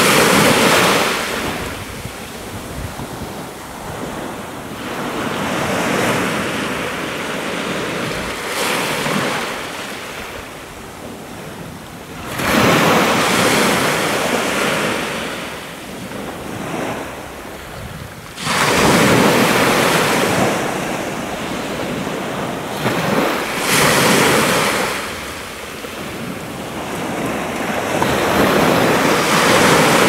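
Sea waves breaking and washing up the shore, coming in loud surging swells every several seconds and ebbing away in between.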